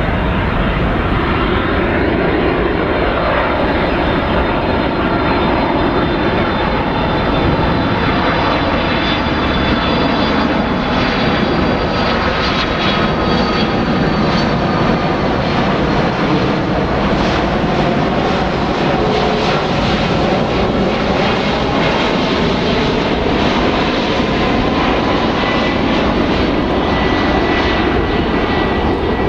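Boeing 767-300 airliner's jet engines running loud and steady, with faint whining tones that slowly fall in pitch.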